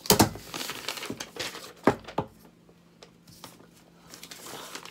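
Sheets of paper being handled and rustled as a sign is picked up. A loud burst of rustling comes right at the start, and there are two sharp taps about two seconds in.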